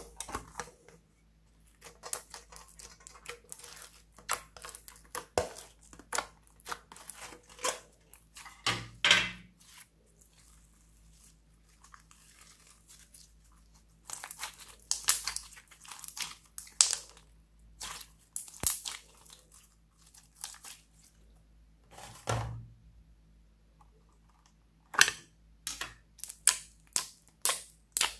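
Slime squeezed and pressed by hands, giving sticky crackles, squelches and small popping air pockets in bursts separated by short quiet pauses.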